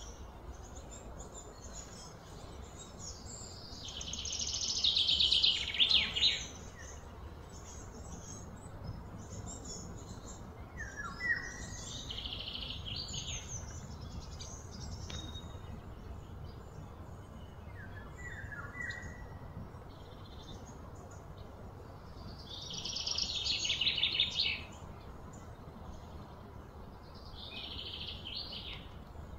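High-pitched bird calls: buzzy trills that swell for two or three seconds, loudest about five seconds in and again near the end, with short falling chirps between, over a steady low background rumble.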